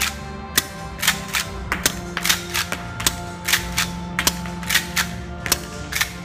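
Marushin Winchester M1887 lever-action gas airsoft shotgun being dry-fired and cycled over and over: a quick string of sharp clacks from the lever action snapping open and shut and ejecting shells. Background music runs underneath.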